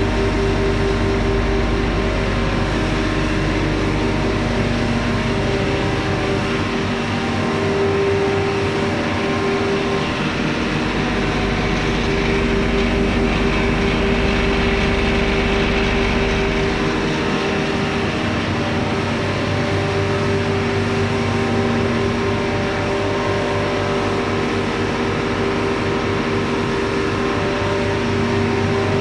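Atta (wheat flour) mill plant machinery running: a loud, steady hum of motors and milling with a constant pitched drone.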